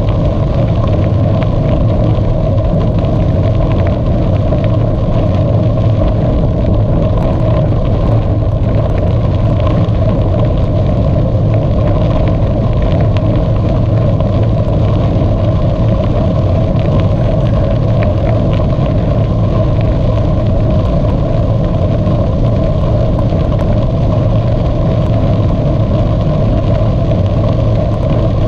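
Steady rumble of a bicycle in motion: wind on the microphone and tyres rolling, with light rattles scattered through it.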